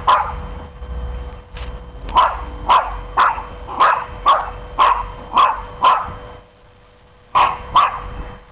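Dog barking in play, short sharp barks about two a second, then after a pause of about a second and a half two more barks near the end.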